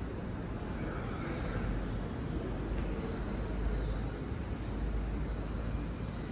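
Airport terminal ambience: a steady low rumble under a faint, even wash of background noise.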